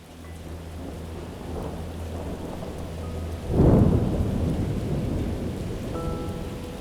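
Steady rain falling, with a loud clap of thunder about three and a half seconds in that rumbles away over the following seconds.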